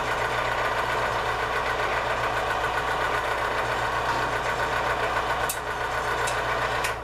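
A 1 HP Central Machinery 4x6 metal-cutting band saw running free, with no workpiece: a steady motor hum under the whir of the blade. It shuts off near the end.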